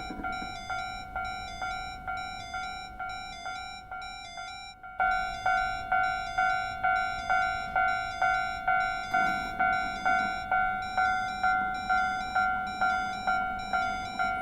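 Japanese railway level-crossing warning bell (the "kan-kan" sound effect), ringing steadily a little over twice a second. About five seconds in it cuts off for a moment and a louder version of the bell starts at the same pace.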